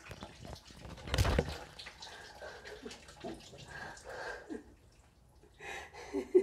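A thump about a second in, followed by scattered soft knocks and rustling from things being handled.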